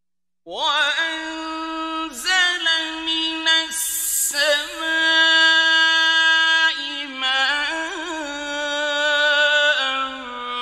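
A male reciter chanting the Qur'an in the melodic mujawwad style: a high voice holds long notes with wavering ornaments. It enters about half a second in, after silence.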